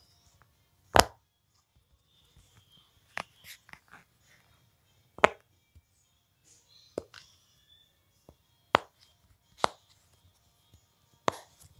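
Sharp knocks or taps, about seven of them, spaced irregularly a second or two apart, with faint rustling and handling noise between.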